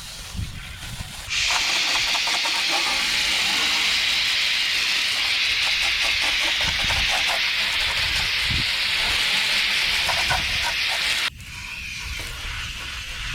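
Steady hiss of liquid sprayed from a nozzle onto a dirty furnace blower housing to soak and clean it. It starts abruptly about a second in and cuts off sharply after about ten seconds.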